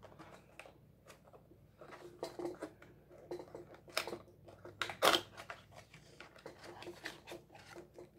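Paperboard trading-card blaster box being torn open by hand: irregular scraping, rubbing and small cracks of the cardboard, with one sharp tearing snap about five seconds in.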